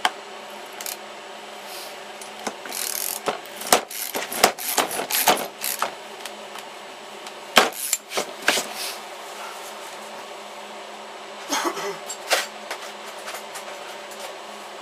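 Irregular scratching, rubbing and knocks from marking and handling a stack of screwed-together chipboard panels, the marker dragging along the wood between taps. A steady faint hum runs underneath.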